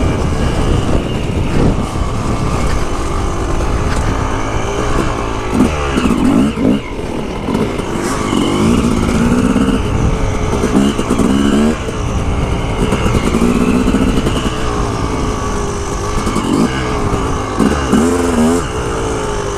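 Yamaha YZ250 two-stroke dirt bike engine being ridden along a trail, its note rising and falling again and again as the throttle is opened and closed, with a steady low rumble of wind and riding noise underneath.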